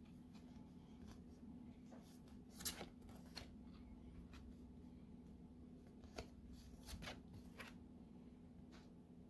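Faint rustling and flicking of stiff card postcards being fanned and shuffled by hand, with a handful of short, sharper flicks, the loudest about two and a half seconds in, over a low steady hum.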